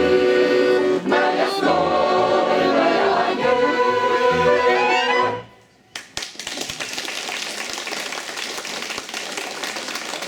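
Mixed choir with instrumental accompaniment singing the last held chords of a song, ending about five seconds in. After a brief pause, an audience applauds.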